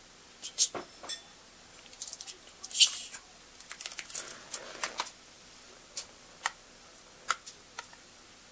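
Pet budgerigar making short, scattered clicks and high chirps at irregular intervals.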